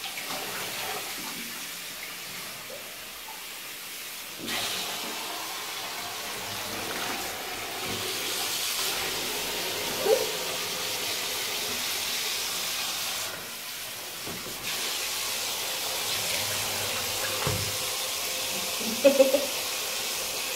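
Water running steadily onto a sponge as it soaks up water. The flow gets louder about four seconds in and drops away briefly around two-thirds of the way through.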